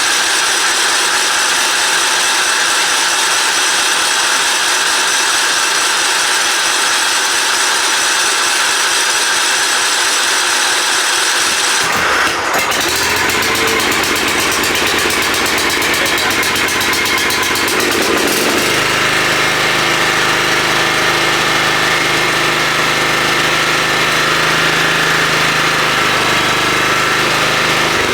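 John Deere riding lawn mower on full choke, its electric starter cranking for about twelve seconds before the engine catches and runs. About six seconds after catching, the engine's note changes and it settles into a steady run. The fuel tank had run dry and was just topped up with fresh gas.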